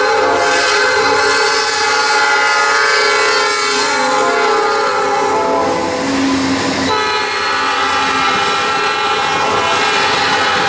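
Norfolk Southern GE freight locomotive sounding its multi-tone horn chord while passing close by at speed; the chord drops in pitch as the locomotive goes past about six seconds in, then freight cars roll by.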